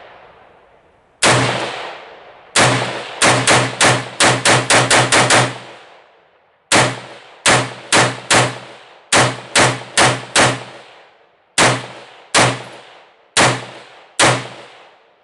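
Springfield Saint Victor AR-15 rifle with a muzzle brake firing semi-automatic in a magazine dump: about two dozen shots, each with a trailing echo. A fast string of about a dozen shots runs about two seconds in, then slower shots at roughly half-second to one-second spacing.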